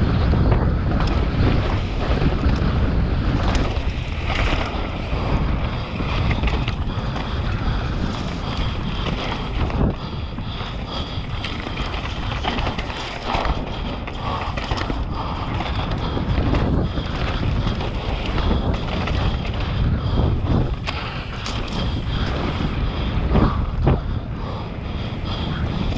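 Wind buffeting the microphone with a steady low rumble of mountain-bike tyres on a dirt trail, broken by frequent short rattles and knocks as the bike rides over roots and rocks.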